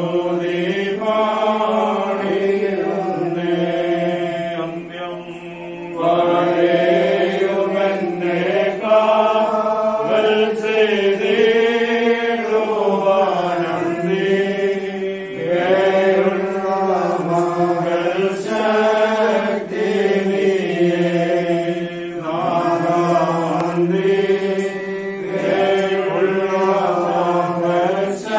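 Voices singing a Malayalam Christian hymn in slow, drawn-out melodic lines, dropping away briefly about five seconds in.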